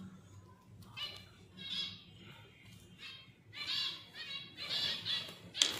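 Finches calling: a run of short, separate calls, about five in all, the loudest near the end.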